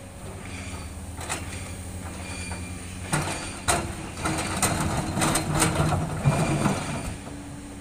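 Komatsu hydraulic excavator's diesel engine running steadily. From about three seconds in, its steel bucket digs into a pile of boulders, with rocks knocking and grinding against the bucket in a string of loud knocks and scrapes that stops about a second before the end.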